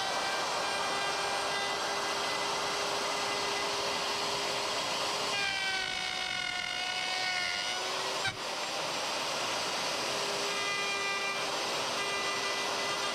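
Handheld electric router running at speed while cutting along a template, a steady high whine. For a couple of seconds in the middle the pitch sags and wavers as the bit takes a heavier cut, then it comes back up to full speed.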